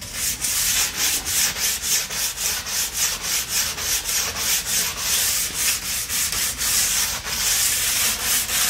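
Panzer file rasping back and forth along a ski's steel edge in quick, even strokes, about four a second. The tuner calls it a very weird sound: the file is being marked by the edge, a sign that something is not right with it.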